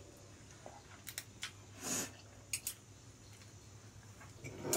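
Quiet eating sounds: instant noodles slurped and chewed, with a few light clicks of chopsticks against the bowl. A short slurp comes about two seconds in, and a louder scrape or clink near the end.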